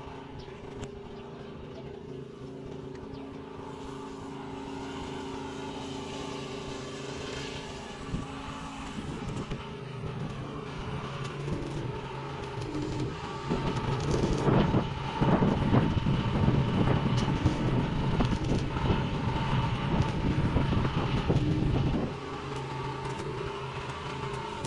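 Stick-welding arc crackling and sizzling as steel pipe is welded with a small inverter arc welder. It is loud for about eight seconds in the second half and cuts off suddenly as the arc is broken. A steady low hum runs underneath in the first part.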